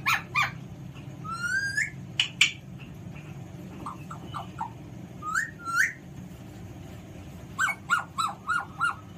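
Alexandrine parakeet whistling and calling: a few sharp short notes, rising whistled glides, and near the end a quick run of five short calls.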